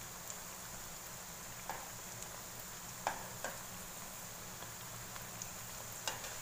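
Tofu fritters frying in hot oil in a nonstick wok, with a steady sizzling hiss. A few sharp clicks come as a slotted spatula knocks against the pan while moving the fritters: near two seconds in, twice around three seconds in, and again near the end.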